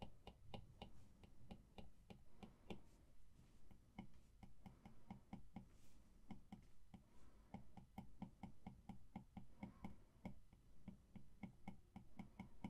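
Apple Pencil tip tapping on the iPad's glass screen as short fur strokes are drawn: faint, irregular ticks, several a second.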